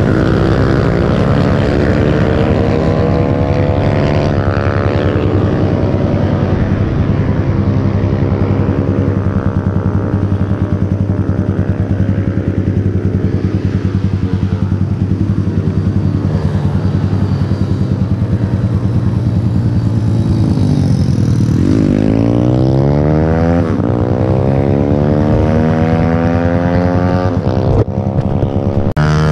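Motorcycle engine running hard under a bike-mounted camera, with wind rush. The revs climb, hold fairly steady for a long stretch, then near the end drop and climb again twice in quick succession, as the rider changes gear.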